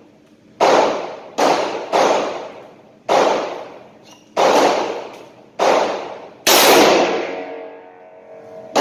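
Rock Island AL3.1 snub-nosed .357 Magnum revolver fired double action in a string of shots about one a second, each shot echoing off the concrete walls of an indoor range. The shot about two-thirds of the way through is the loudest and rings longest.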